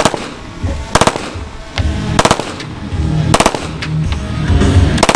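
Fully automatic firearm fired in short bursts of several shots each, five bursts about a second apart, over background music.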